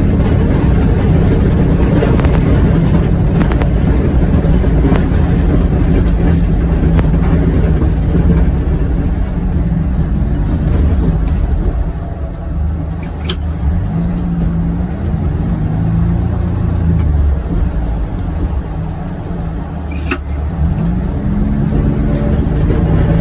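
John Deere Gator XUV835M utility vehicle's engine running under load while plowing snow, its pitch shifting with the throttle. It runs quieter for several seconds past the middle, with two sharp clicks, and picks up again near the end.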